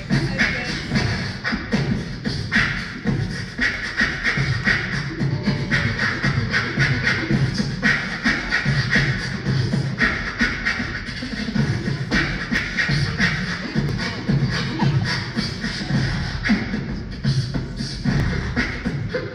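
Beatboxing into a microphone: a steady, fast rhythm of mouth-made kick-drum thumps, snares and hi-hat clicks, amplified through a PA.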